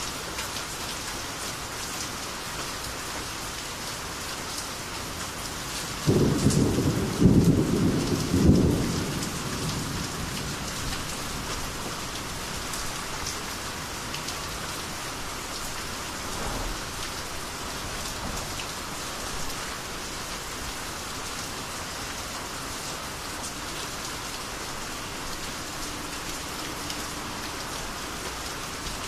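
Steady rainy-season rain falling, with a sudden low peal of thunder about six seconds in that swells in two or three peaks and dies away within about four seconds.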